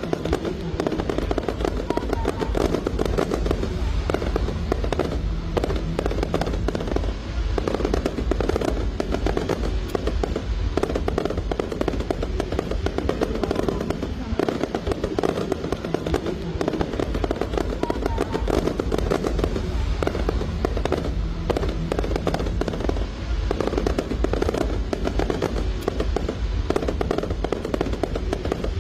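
Aerial fireworks display: continuous rapid crackling and popping of bursts, with music playing underneath.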